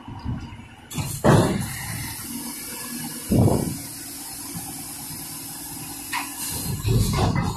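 Heil front-load garbage truck working a dumpster: a long air hiss, with three heavy low thumps (about a second in, a little past three seconds, and near the end) as the forks and arms engage the container.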